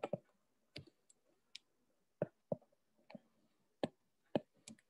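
About a dozen sharp, irregular clicks with short gaps between them, from a stylus tapping a pen tablet while writing on a digital whiteboard.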